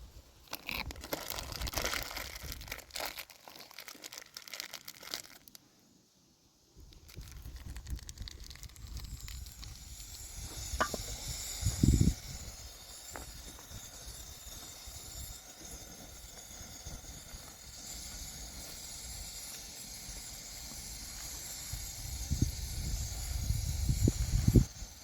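Rustling and crinkling handling noises, then, after a short break, a steady hiss with a few knocks.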